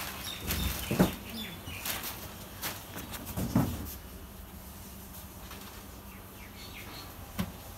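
A few short knocks, the loudest about a second in and another about three and a half seconds in, over a low steady hum, with faint bird chirps.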